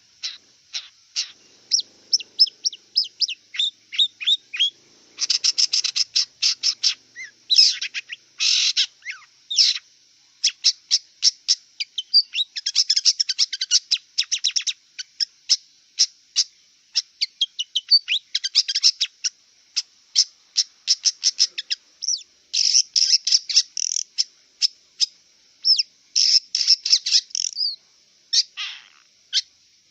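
Long-tailed shrike (cendet) singing a rapid, varied chattering song of short chirps and trills, broken by brief pauses, over a steady high-pitched hiss.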